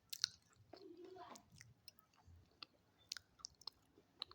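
Crunchy food being bitten and chewed close to the microphone: a series of sharp, crisp cracks and crunches, the loudest just after the start.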